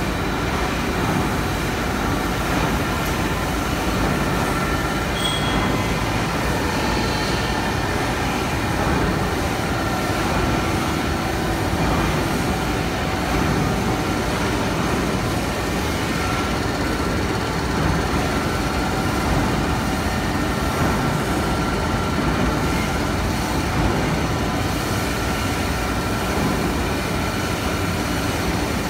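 Zhongtai ZTM-D film slitter rewinder running: a steady, even mechanical noise from its rollers and rewind shafts, with faint steady tones above it.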